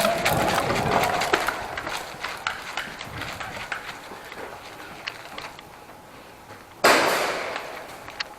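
Footsteps and scattered knocks of airsoft players moving through an indoor CQB arena, fading, then a sudden loud burst of noise about seven seconds in that dies away over about a second.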